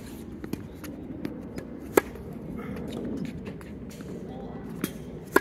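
Tennis ball struck by a racket: two sharp pops with a short ring, about two seconds in and again at the very end, with a few softer ticks between them.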